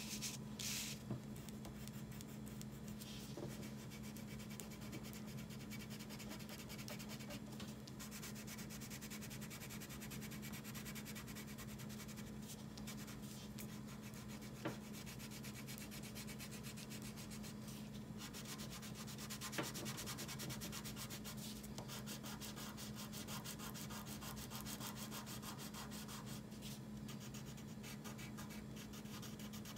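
Wax crayon rubbing on paper in quick, steady back-and-forth colouring strokes.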